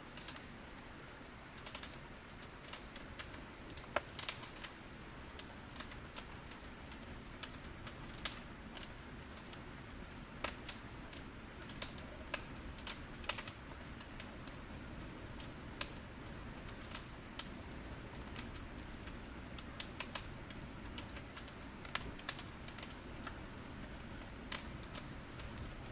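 Fire crackling: irregular sharp pops and snaps, a few louder than the rest, over a low steady rush of burning.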